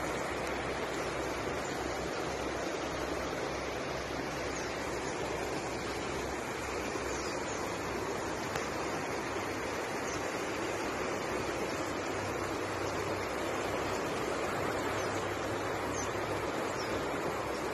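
Steady rushing of fast-flowing muddy floodwater, an even watery noise with no breaks.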